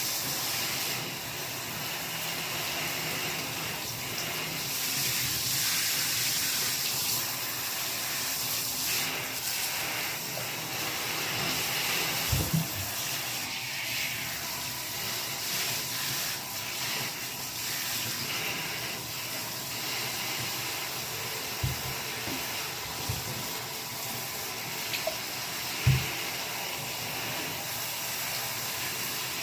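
A person hiccuping, about four short low hiccups spaced several seconds apart, over a steady rushing hiss.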